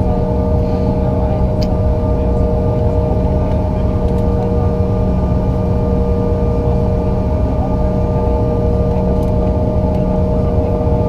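Steady jet engine drone heard inside the cabin of a Bombardier CRJ-900, whose two GE CF34 turbofans are mounted at the rear: a low rumble under a constant hum of steady tones, unchanging in pitch and level.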